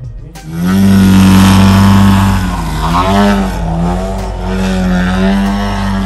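A large radio-controlled aerobatic model airplane's engine and propeller at high power in flight: a loud, steady drone starting about half a second in, whose pitch wavers up and down from about halfway through as the plane maneuvers.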